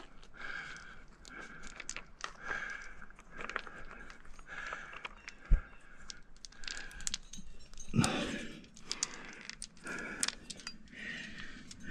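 Metal climbing gear (carabiners, a sling and a tricam) clinking and jangling in short sharp clicks as it is handled and clipped. A dull knock comes about halfway through, and a louder rustle and scrape about two-thirds through.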